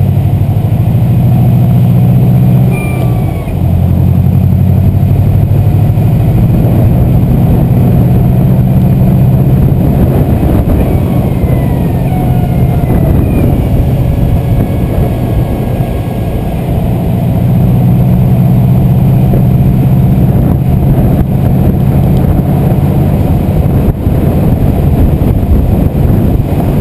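Turbocharged flat-four engine of a tuned Subaru WRX running loudly while driving, its pitch steady for long stretches. The engine dips briefly about three seconds in, and a few faint short high chirps sound over it.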